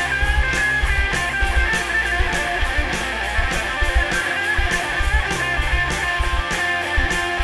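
Live rock band playing an instrumental passage without vocals: electric guitars over bass and drums, with evenly spaced cymbal hits keeping the beat.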